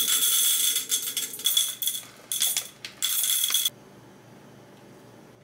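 Coffee beans poured from a glass jar into a container on a kitchen scale, rattling in several bursts and stopping short a little before four seconds in.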